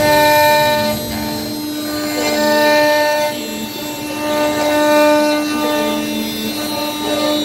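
CNC router spindle whining steadily as the bit carves, the cutting noise swelling and easing several times.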